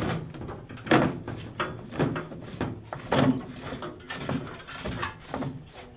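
Reverse osmosis filter housing being screwed by hand back onto the unit's head: a run of irregular knocks and scraping handling sounds, the loudest about a second in and again near the middle.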